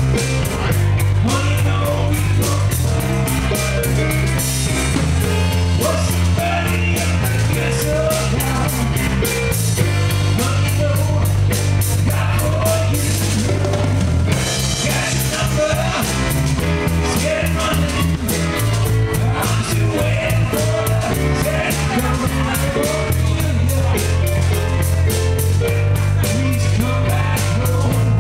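Live band playing a blues number: keyboard, bass and a drum kit keeping a steady beat on the cymbals.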